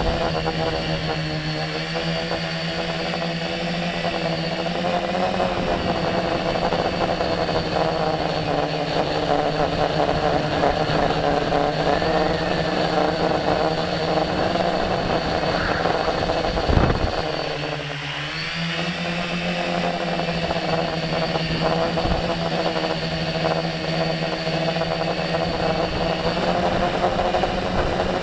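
Tricopter's three brushless motors and propellers whirring in flight, their pitch wavering up and down with throttle. About two-thirds of the way through, the throttle drops briefly and the motors spool back up.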